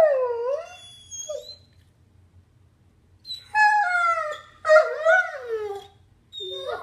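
A puppy howling at a closed door: a falling wail at the start, a short note, a pause of about two seconds, then a longer wavering howl. It is separation howling, the puppy missing someone who has just left.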